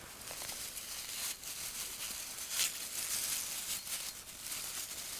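Dry grass rustling and crackling as hands twist and rub it into a tinder bundle. A continuous crisp crinkling, with louder crackles about a second and a half and two and a half seconds in.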